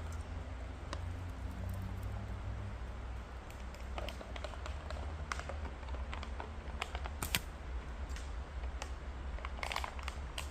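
Scattered small clicks and taps of a slingshot being handled, loaded and shot, with one sharper snap about seven seconds in, over a low steady rumble.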